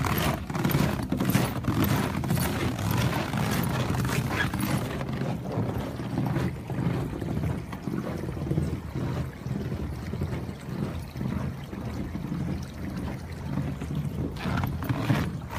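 A creek's water running under a partly frozen, snow-covered surface. Footsteps sound over about the first five seconds.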